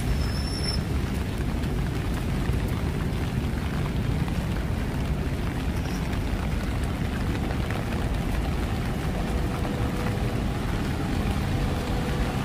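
Steady rain falling on a city street over a constant low rumble of traffic. A faint steady hum joins about nine seconds in.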